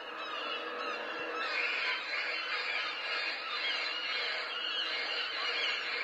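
Many gulls calling at once, a dense chorus of overlapping squealing cries that grows fuller and brighter about a second and a half in.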